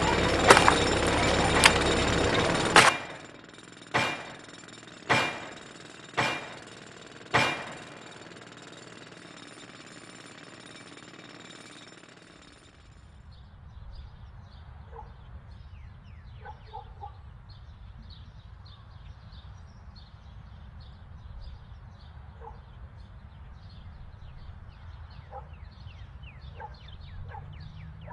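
A loud, noisy din that cuts off abruptly about three seconds in. Then four heavy impacts about a second apart, each ringing briefly. Later a faint outdoor background of many short high chirps with a few brief calls.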